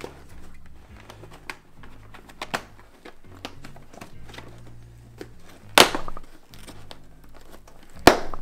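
Hands working the fabric liner and old headset speaker inside a motorcycle helmet, making scratching and crinkling sounds. Twice, about two-thirds of the way in and near the end, there is a loud short rip of a Velcro-backed speaker being pulled off the helmet pad.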